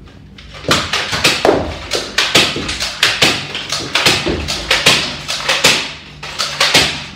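Toy dart blasters firing in quick succession: a loud string of about twenty sharp shots, roughly three a second, starting about a second in and stopping near the end.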